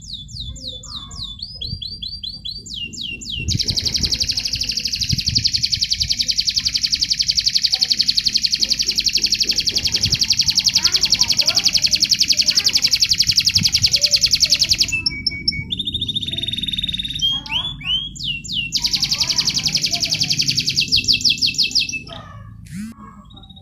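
Domestic canary singing a contest-style song of rapid high trills and rolls. One long, fast trill is held for about ten seconds, followed by short varied phrases and another fast trill near the end.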